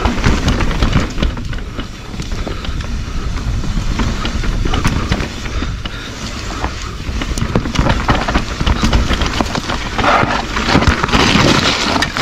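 Mountain bike riding down a rough trail: tyres on dirt and roots and the bike rattling and knocking over the bumps, under a heavy rumble of wind on the microphone. It gets louder about ten seconds in.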